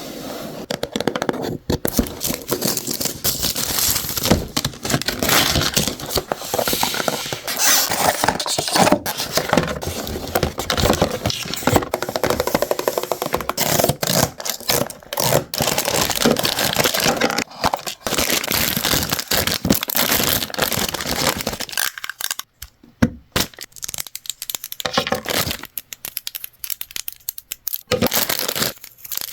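Packaging being torn open and crinkled by hand, a long run of rustling, tearing and crackling with a short pause a little over two-thirds of the way through.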